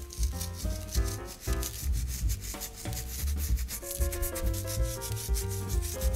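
Fingertips rubbing pinches of salt over raw pork ribs: a fast, gritty crackle of falling crystals, over soft background music.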